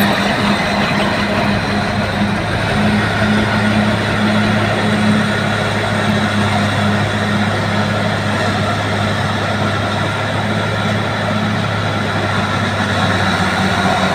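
Bulldozer's diesel engine running steadily with a low drone while the dozer works skidding logs.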